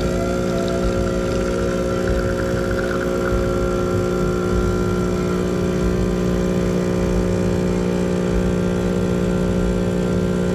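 Espresso machine pump running steadily with a constant hum while a shot is being pulled.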